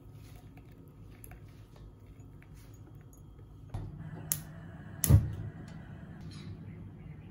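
Kitchen cooking sounds: a steady hiss from a lit gas stove burner, a sharp click about four seconds in, then a loud knock of cookware on the stovetop about a second later.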